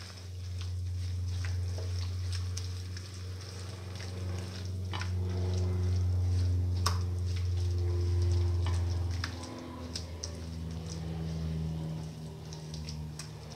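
A spatula stirring minced chicken sizzling in a frying pan, with scattered sharp clicks of the spatula against the pan, over a steady low hum.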